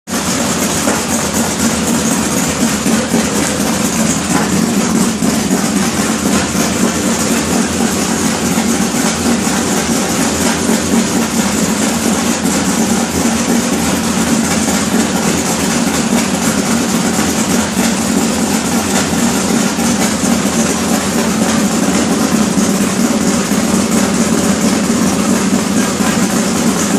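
Race car engine running steadily at an even speed, without revving.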